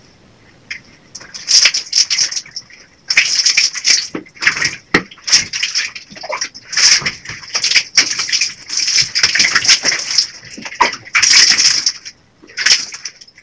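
Water splashed by hand while washing the face, in quick irregular splashes with short pauses between them.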